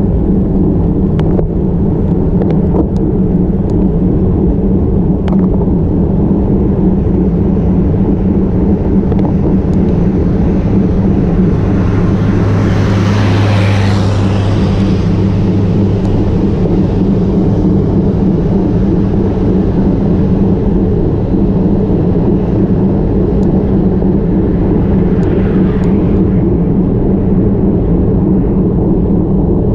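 Steady wind and road rumble on a bike-mounted action camera during a road-bike climb, with a few faint clicks early on. About 12 seconds in a truck passes the other way, its engine hum and rush swelling and fading over about three seconds.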